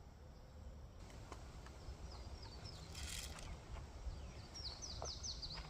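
A small bird singing two quick runs of short, falling high notes, the second near the end, over a faint low outdoor rumble. A brief rustle about three seconds in.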